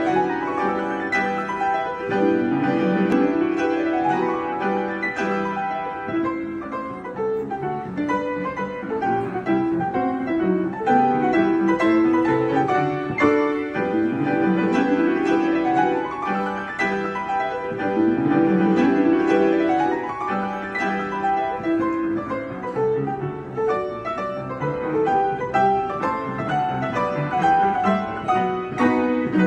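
Piano duet on two upright pianos, classical-style, with repeated rising runs over steady chords.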